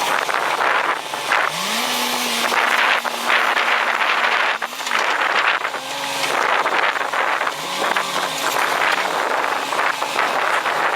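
Heavy earthmoving machine's diesel engine running under load, its pitch rising and falling several times as it is revved.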